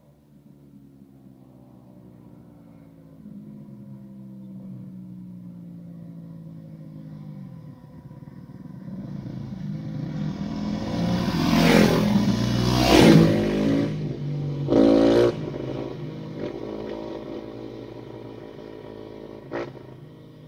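An engine, its pitch sliding, grows louder to a few loud rushes about twelve to fifteen seconds in, then fades, with one sharp click near the end.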